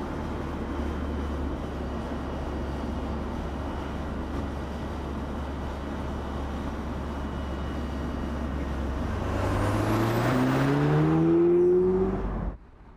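Audi S3 Cabriolet on the move: steady road and wind noise, then about nine seconds in the engine note climbs as the car accelerates, growing louder before cutting off abruptly near the end.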